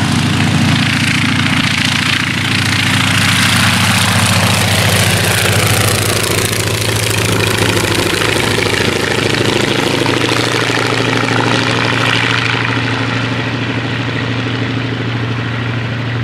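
Wright J5 radial engine of a Spirit of St. Louis replica running at full takeoff power as the monoplane lifts off and climbs past. Its pitch drops between about six and ten seconds in as it passes, then holds steady and lower as it flies away.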